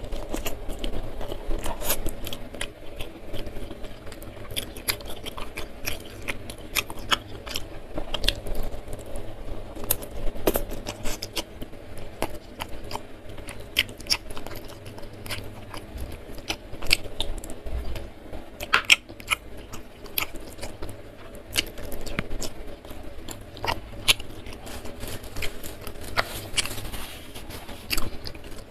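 Close-miked chewing and biting of fried food eaten by hand, with many short crunches and wet mouth clicks.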